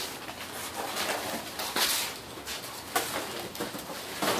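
Cardboard and brown paper packaging rustling and crinkling as it is handled, with a few sharper crackles.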